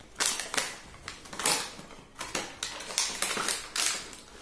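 Headphone packaging being torn and pulled open by hand: a quick, irregular series of sharp crackling rustles of plastic wrap and cardboard.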